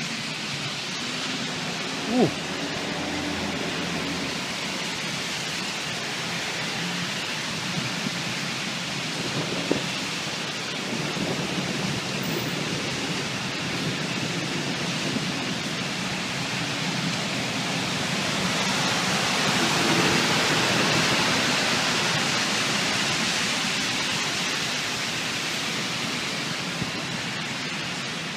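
Heavy thunderstorm rain pouring steadily, swelling louder for several seconds past the middle, with two short sharp clicks early on.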